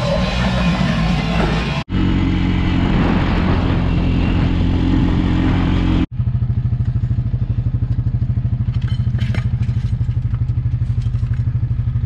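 A small engine idling near the microphone, pulsing evenly several times a second, the steady beat of an engine at idle.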